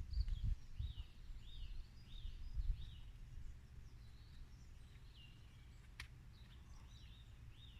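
A small bird singing a repeated phrase of short chirps that rise and fall, close to two a second, in two runs with a pause in the middle. Under it are a low rumble and a few dull bumps in the first three seconds, and a single sharp click about six seconds in.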